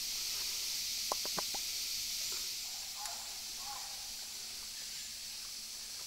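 Rainforest ambience: a steady, high-pitched insect hiss, with a few small clicks about a second in.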